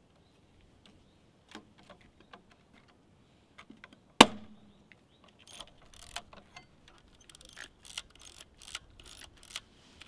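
Pentax 67 medium-format film camera being handled during film loading: a few faint clicks, then one sharp snap about four seconds in as the film back is shut, followed by a run of quick mechanical clicks as the film is wound on.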